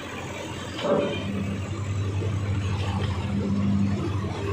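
Heavy machinery running with a steady low hum, which comes in just after a single loud knock about a second in.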